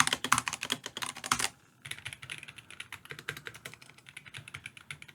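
Fast typing on a Razer Huntsman V3 TKL keyboard, a rapid run of keystrokes with a short pause about a second and a half in, then going on a little softer. The keys carry a spring ping that the typist calls awful.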